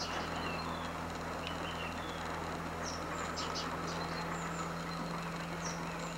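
Outdoor ambience of a steady low hum under a noisy hiss, with scattered short, high chirps of small birds, several of them from about three seconds in.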